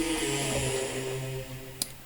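Software synthesizer patch played from a MIDI keyboard: a held chord of several steady tones with a hissy, airy top, fading out about a second and a half in. A single sharp click follows near the end.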